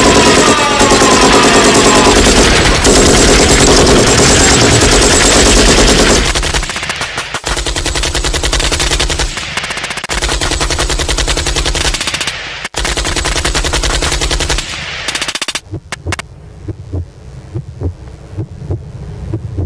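Electronic machine-gun sound effect: loud, rapid automatic fire with falling whistle tones at the start, going on in stretches and cutting off about fifteen seconds in. After it comes a softer, regular thudding pulse like a heartbeat.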